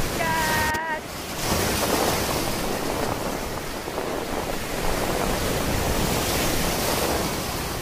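Surf breaking on a beach with wind buffeting the microphone: a steady rushing noise throughout.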